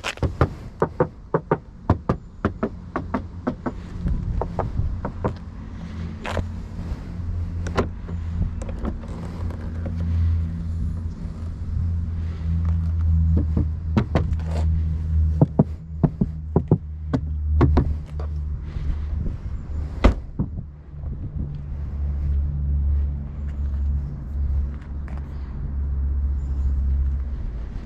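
Cabin of a BMW Z4 M40i on the move: a steady low drone of engine and road, with many sharp, irregular knocks, thick in the first eight seconds and then scattered, the knocking sound the car has.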